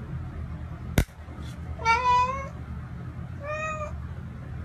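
A single sharp click from a cat-food can, then a ginger cat meowing twice: a longer meow that rises and falls and a shorter one after it. A steady low hum runs underneath.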